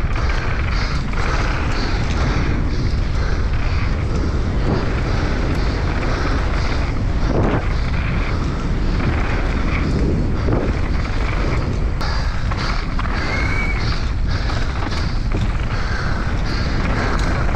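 Wind buffeting the camera microphone on a fast mountain bike descent, with tyres running over a dirt trail and the bike's chain and frame rattling and clicking over bumps.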